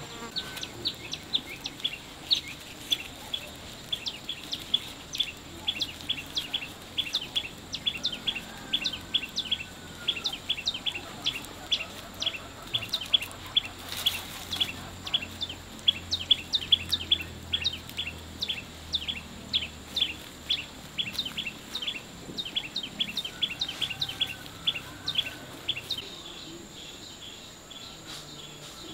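A bird chirping over and over in quick, sharp, slightly falling notes, about three or four a second, stopping shortly before the end. A faint steady high tone runs underneath.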